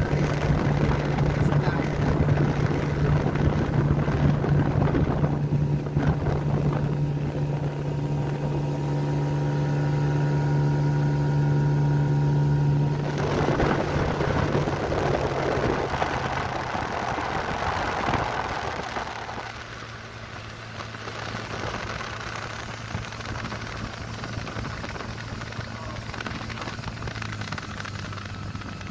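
Outboard motor of an inflatable motorboat running steadily at speed, with water and wind rushing past. The engine note changes and turns to a rushing hiss a little under halfway in, then settles to a quieter, lower steady hum for the last third.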